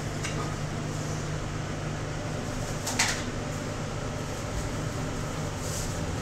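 Steady low mechanical hum filling the kitchen, with a single sharp clink of a dish or utensil about three seconds in as meat is laid out on plates.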